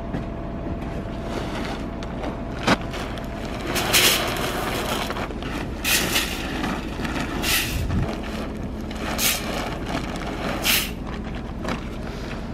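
A vehicle engine running steadily, with a few short rushes of hissing noise over it.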